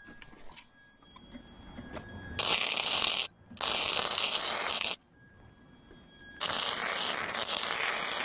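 MIG wire-feed welder arc crackling as beads are laid on the steel protector plate, in three runs: a short one about two and a half seconds in, a longer one right after a brief break, and a third starting near the end.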